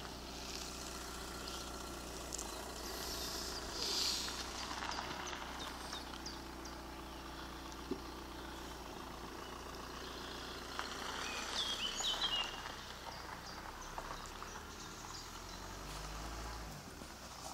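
Birds chirping and calling over a low, steady background rumble, with the busiest calling about four seconds in and again around twelve seconds in.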